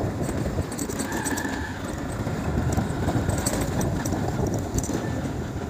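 A vehicle on the move: a steady low rumble with scattered clicks and rattles.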